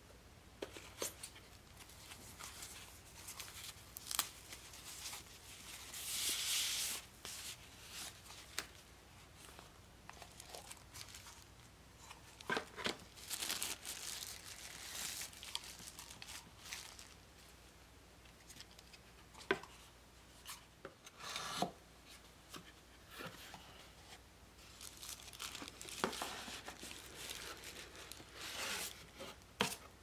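Paper packing rustling and crinkling as it is pulled out of a cardboard box and handled, in bursts with short quiet gaps and a few sharp clicks.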